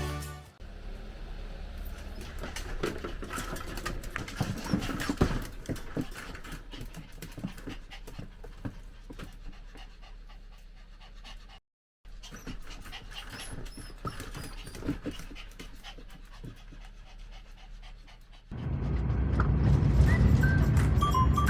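A toy poodle panting, with small clicks and rustles, cut by a brief dropout about halfway. Background music comes back in near the end.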